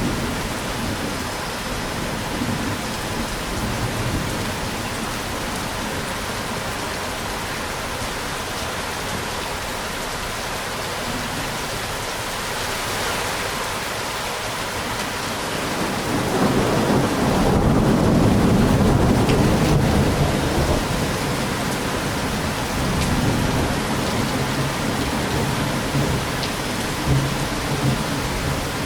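Steady rain falling, with a low rumble of thunder that swells a little past halfway and slowly dies away.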